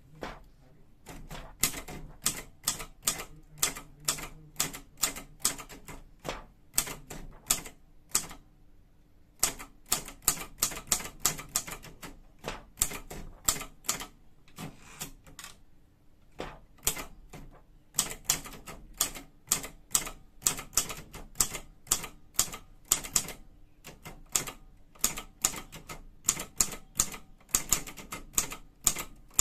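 Imperial Mercury typewriter being typed on: keys strike the platen in quick runs of about three to four sharp clacks a second, with brief pauses about a third of the way in and at mid-way.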